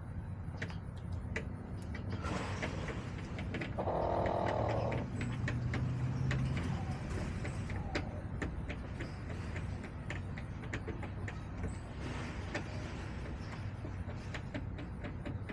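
Outdoor chicken-coop ambience: scattered light clicks and taps over a steady low rumble of traffic, with a brief louder sound about four seconds in.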